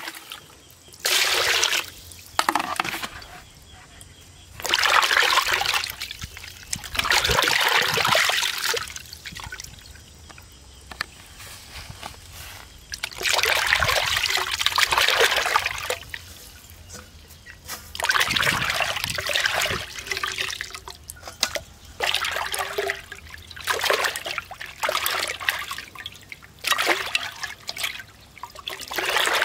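Water splashing and sloshing in a glass bowl as hands squeeze and rub raw pig intestines to wash them, in repeated bursts of a second or two with quieter gaps between.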